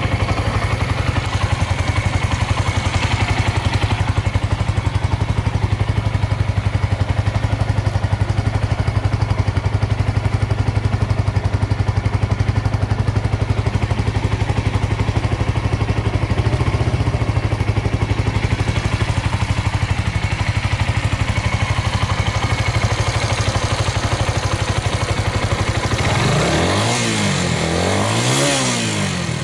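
Suzuki Volty's single-cylinder engine idling steadily with an even firing rhythm, then revved up and back down twice near the end. It runs with no abnormal noise.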